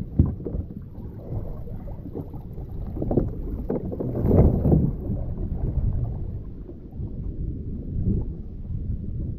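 Water splashing and lapping against a plastic kayak hull as a swimmer in a drysuit moves alongside it, trying to climb back aboard, with wind rumbling on the microphone. A sharp knock comes just after the start, and the loudest splashing comes about four to five seconds in.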